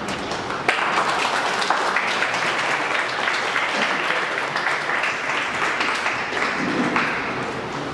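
Audience applauding: dense clapping that picks up about a second in and eases off near the end.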